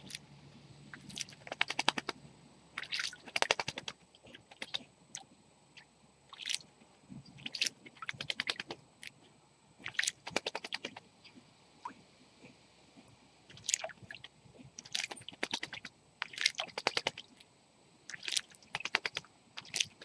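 Male Eurasian blackbird bathing in shallow water, beating its wings and flicking water over itself. The splashing comes in short bursts of rapid patters, about one burst every second or two.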